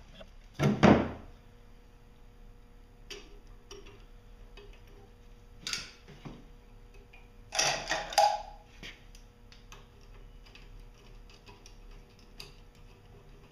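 Metal knocks and clicks of a marine exhaust elbow being set onto a MerCruiser 383 Mag's exhaust manifold and its hardware fitted by hand and with a socket tool. The loudest knocks come about a second in and twice more around six and eight seconds, with small scattered clicks between.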